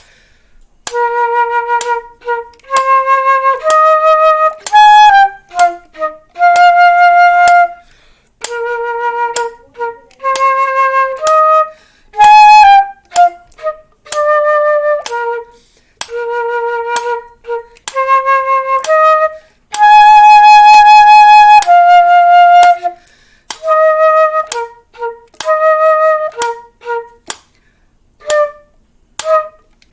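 A woodwind plays a simple melody slowly, one held note at a time with short breaks between phrases, along with a metronome ticking about once a second (63 beats per minute). The playing stops near the end and only the metronome ticks remain.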